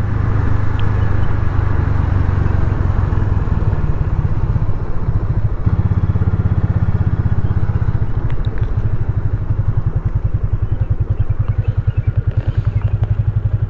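Single-cylinder 250 cc motorcycle engine pulling away and riding on. Its exhaust beat settles into a steady, evenly spaced pulse in the second half.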